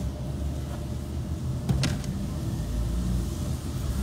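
Car driving slowly on a wet road, heard from inside the cabin: a steady low rumble of engine and tyres, with a sharp click a little under two seconds in.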